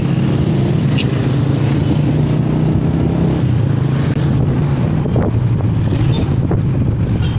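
Motor scooter engine running steadily while riding, with wind on the microphone.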